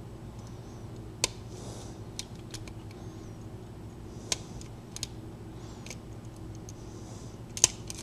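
Lock pick working the pins of a brass pin-tumbler deadbolt cylinder held in a vise: small metallic ticks and light scraping, with a few sharper clicks, over a steady low hum. The lock has five standard pins and no spool pins.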